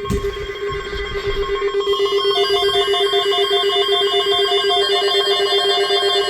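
Emergency alert attention tone: a loud, steady warbling electronic alarm tone, joined about two seconds in by a faster on-off beeping tone higher in pitch, signalling the start of a new weather alert.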